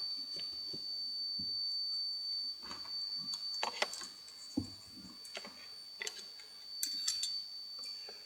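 Scattered light clicks and taps at irregular moments, from small parts and tools being handled on an electronics workbench, over a steady high-pitched whine.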